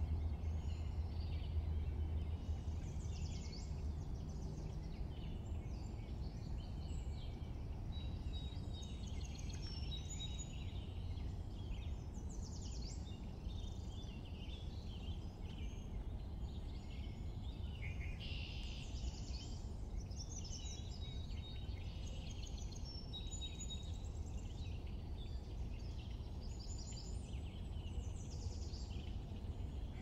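Wild songbirds chirping and trilling, many short calls overlapping, over a steady low outdoor rumble.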